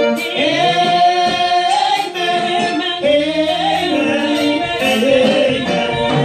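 A women's church praise team singing a worship song into microphones, several voices together on long held notes.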